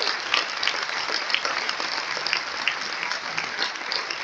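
Audience applauding after a number, a dense patter of hand claps that slowly dies down.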